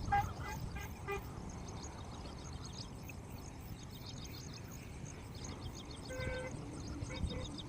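Outdoor background with a few short pitched toots: several in the first second, a longer one about six seconds in and two quick ones near the end. Faint high chirping runs underneath.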